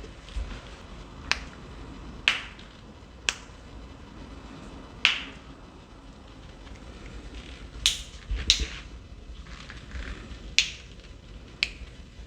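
Joints cracking under chiropractic adjustments: a string of sharp single pops, each a second or more apart, with two pops in quick succession about eight and a half seconds in.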